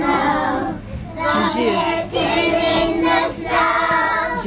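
A group of young children singing a song together, in short sung lines with brief pauses between them.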